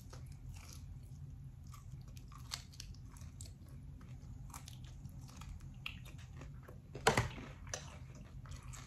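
A person chewing a crispy fried chicken wing up close: small crunches and crackles of the breading come every second or so, with one louder crack about seven seconds in.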